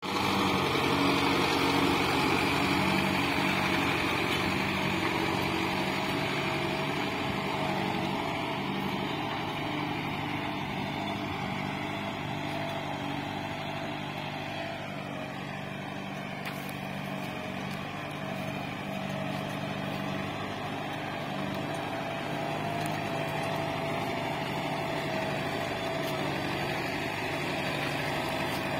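Kubota MU5501 tractor's 55 hp diesel engine running steadily under load while pulling a mounted reversible plough through soil. The engine note holds a constant pitch; it is louder at first, dips around the middle and comes back near the end.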